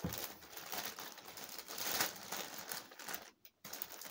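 White plastic mailing bag crinkling as it is handled and squeezed, with a brief break a little after three seconds.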